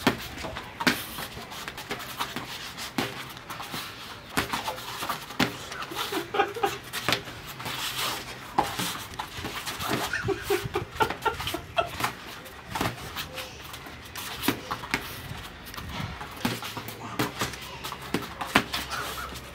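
Boxing gloves thudding on gloves, arms and body during light sparring, strikes coming irregularly every second or so, with laughter and hard breathing in between.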